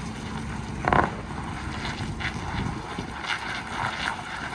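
Farm tractor engine running, with a steady low rumble, wind buffeting the microphone and light rattling. A brief louder knock comes about a second in.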